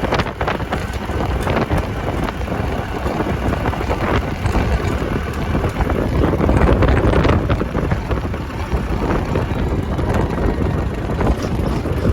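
Strong sandstorm wind buffeting the microphone, a loud, gusting rumble.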